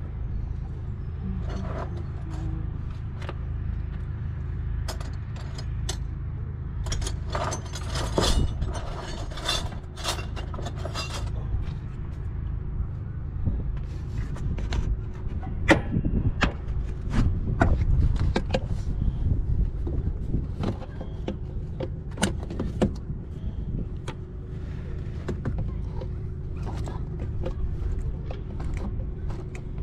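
Metal hand tools and parts clinking, knocking and rattling during removal of a van's engine cooling fan and fan clutch, over a steady low rumble and a faint steady hum. A dense run of rattling comes about a quarter of the way in, and scattered sharp knocks follow.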